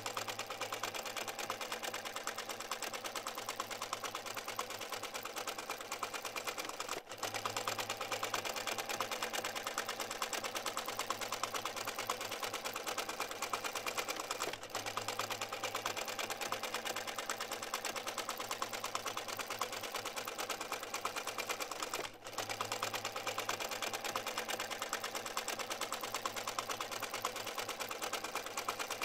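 Steady, rapid mechanical clatter over a low hum, like a small machine running, with brief drop-outs about every seven and a half seconds as the loop restarts.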